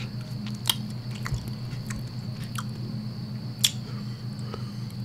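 Close-miked chewing of a mouthful of rice and squid rendang: soft wet mouth clicks and lip smacks every second or so, the sharpest about three and a half seconds in, over a steady low electrical hum.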